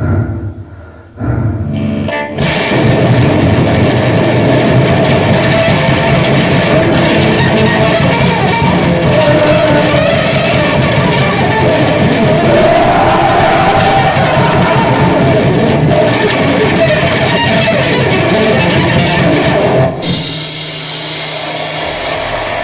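Grind/noise music: after a sparse start, a dense, loud wall of distorted guitar and band noise comes in about two seconds in, then gives way to a thinner guitar passage near the end.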